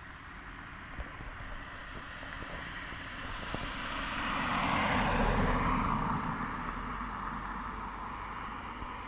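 A compact car driving past, its engine and tyre noise swelling to a peak about five seconds in and then fading away, the pitch dropping as it goes by.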